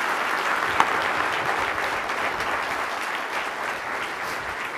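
Audience applauding: many hands clapping in a dense, steady patter that slowly eases off, with one sharp click a little under a second in.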